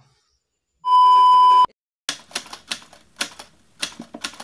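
A single steady electronic beep lasting under a second, then a typewriter sound effect: irregular keystroke clacks, about three a second.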